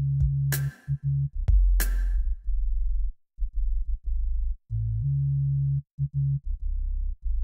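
Background electronic instrumental music: a deep bass line with drum-machine hits, the drums dropping out about two and a half seconds in and leaving the bass alone.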